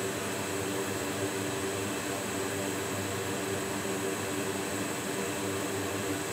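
A fan or air blower running steadily: a constant rushing noise with a faint low hum, unchanging throughout.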